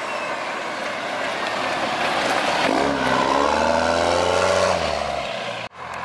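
Fourth-gen Ram's 6.7 Cummins turbo diesel pulling away and accelerating hard, its pitch rising for about two seconds before easing off. The turbo has an aftermarket compressor-cover mod meant to make it whistle and scream. The sound cuts out abruptly near the end.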